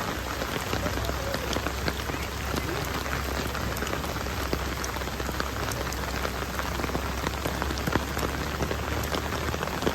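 Heavy rain falling steadily, with many separate drops striking surfaces.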